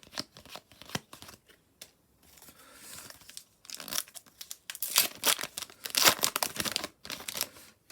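Adrenalyn XL trading-card pack wrapper being torn open and crinkled in the hands: a dense run of sharp crackles, loudest about five to six seconds in, after a few lighter clicks of handling.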